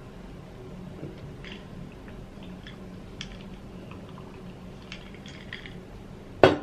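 Sips and swallows from a glass of iced juice, with small scattered clicks, then a sharp knock near the end as the glass is set down on the table.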